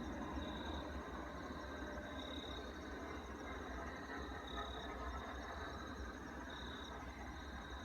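Night insects calling: a steady high trill with a louder chirp about every two seconds, over a low steady rumble.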